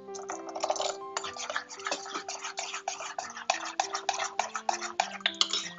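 Metal spoon beating pancake batter in a ceramic bowl: quick, repeated scraping clinks of spoon on bowl, about five a second. Soft background music plays under it.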